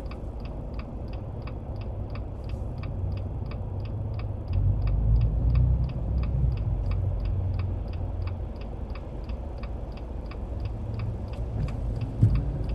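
Low road rumble inside a car's cabin while driving on a snowy road, swelling for a couple of seconds about halfway through. A steady, even ticking, about three to four ticks a second, runs over it.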